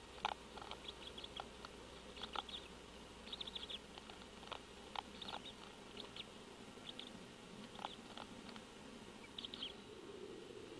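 Faint, irregular clicks and crackles, some in short quick clusters, from a female great horned owl chewing eggshell in the nest.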